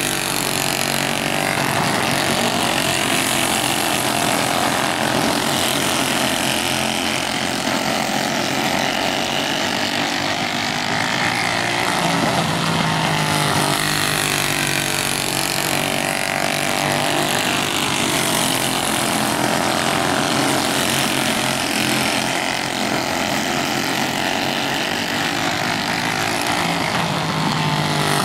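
Racing kart engine at full throttle as the kart laps a dirt oval, its pitch rising down the straights and dropping into the turns, over and over.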